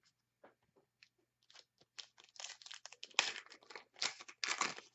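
Foil trading-card pack wrappers crinkling and tearing as they are handled, in irregular crackles that grow busier and louder about two seconds in.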